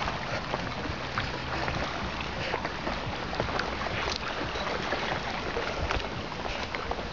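Footsteps on a wet stone path, light taps scattered over a steady rushing noise.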